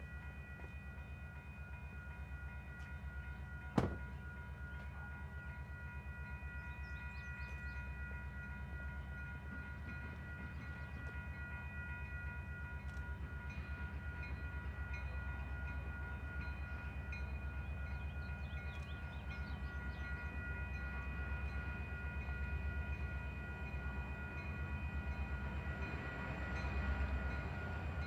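Grade-crossing warning bell ringing steadily as a freight train approaches, with the rumble of the oncoming diesel locomotives growing louder near the end. A single sharp knock about four seconds in.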